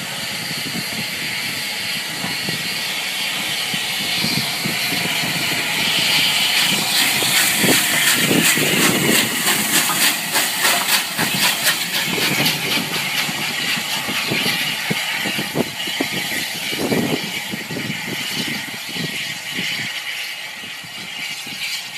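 Bulleid Battle of Britain class three-cylinder steam locomotive moving slowly as a light engine: a steady hiss of steam with regular exhaust beats. It grows louder as it draws alongside about midway, then fades as it pulls away.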